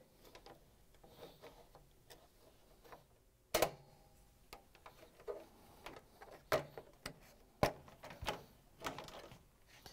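Scattered sharp clicks and snaps as the plastic locking tabs of a microwave door's choke cover are pried loose with metal putty knives. The loudest click comes about three and a half seconds in, and several more follow in the second half.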